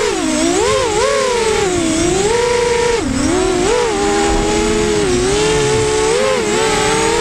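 FPV racing quadcopter's electric motors and propellers whining, the pitch swinging up and down every second or so with the throttle, then holding steadier with small dips in the second half.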